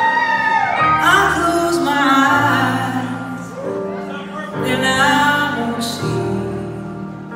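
Live slow ballad: a woman singing with gliding, held notes over sustained keyboard accompaniment, heard from the audience in a large hall.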